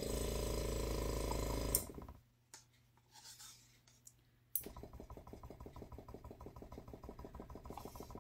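Small airbrush compressor running with a rapid, even pulsing chug. It cuts out about two seconds in and kicks back on about two and a half seconds later.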